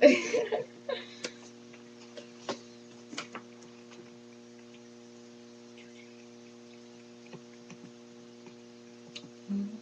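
Steady electrical mains hum with a few light, scattered clicks and taps.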